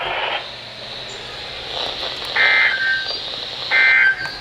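NOAA Weather Radio's SAME digital data bursts over radio hiss: two short buzzing bursts about a second and a half apart, about halfway through and near the end. These are the end-of-message code that closes the weekly test.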